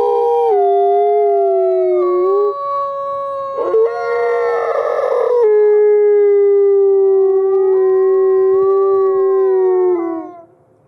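Two gray wolves howling together in long, drawn-out howls at two different pitches that overlap and slowly slide. About four seconds in the howling turns rougher for a second or two, and it fades out just before the end.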